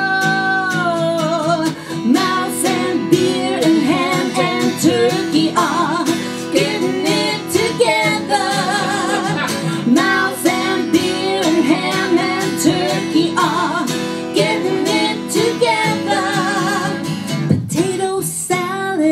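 Live song: an acoustic guitar strummed steadily under women's voices singing, with wide vibrato on long held notes. A held note at the start bends down about a second in.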